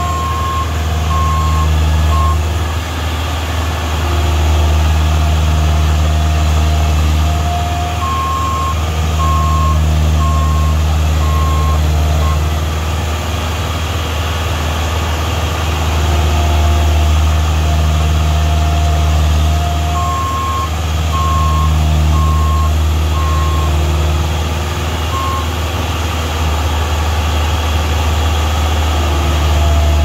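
Heavy diesel engine of a road roller working hard in deep mud, its revs rising and falling every few seconds. A reversing alarm beeps about twice a second in three spells: near the start, about a third of the way in, and again two-thirds of the way in.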